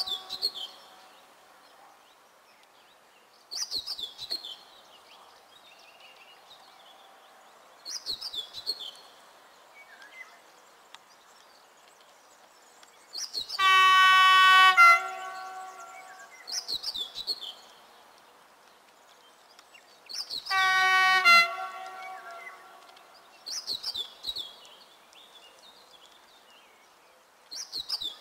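Two long blasts of a locomotive horn about six seconds apart, each dropping in pitch as it ends: the RP1 'Baczność' (attention) warning that trains are sounding because of a faulty level-crossing barrier. Between the blasts a songbird repeats a short falling phrase every few seconds.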